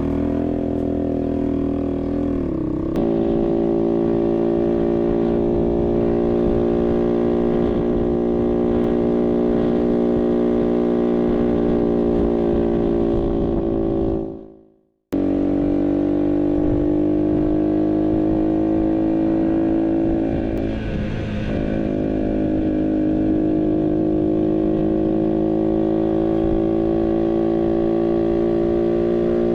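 Barton Volcano 50cc moped engine running steadily under way, its pitch shifting a couple of seconds in and creeping slowly upward later. About halfway through the sound fades out to a moment of silence, then comes back abruptly.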